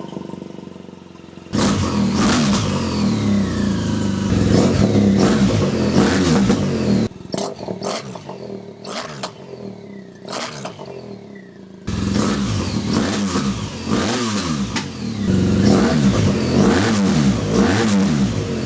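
BMW R1200GS Adventure boxer-twin engine idling and being blipped repeatedly, the exhaust note rising and falling with each rev. The sound changes abruptly about a second and a half in, around seven seconds in and around twelve seconds in, as separate recordings follow one another.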